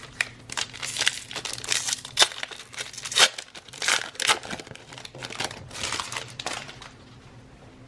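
A trading-card pack wrapper being torn open and crinkled in the hands: a dense, irregular run of rustling and tearing for about seven seconds that dies away near the end.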